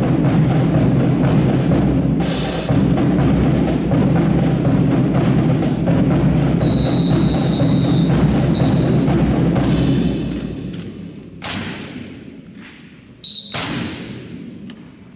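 Percussion-heavy music with drums that fades out about ten seconds in, with a brief high steady tone partway through. Then two sharp cracks ring out with a long echo in the hangar, the second one doubled.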